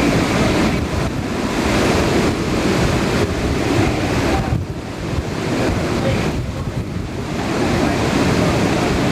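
Hurricane wind blowing hard with driving rain, buffeting the microphone. It eases briefly twice, a little before the middle and again about two-thirds through.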